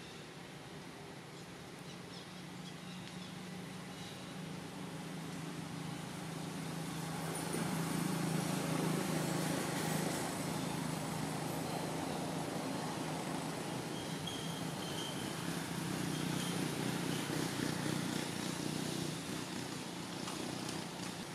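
A steady low engine hum over background hiss. It grows louder over the first several seconds, holds, and eases a little near the end.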